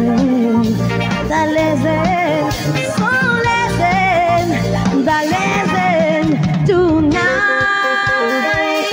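Live band music with a woman singing lead over a steady dance beat. About seven seconds in the voice drops out and an instrumental melody line takes over.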